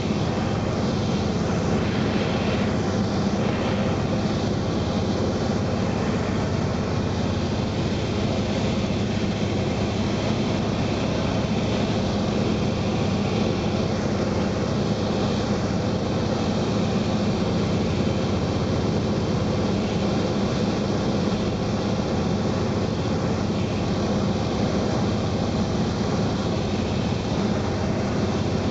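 De Havilland Beaver floatplane's engine and propeller droning steadily in cruise flight, heard from inside the cabin.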